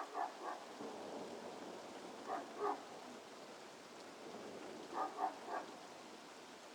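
A Newfoundland dog barking in short bursts of two or three barks, three times, over a steady hiss of falling rain.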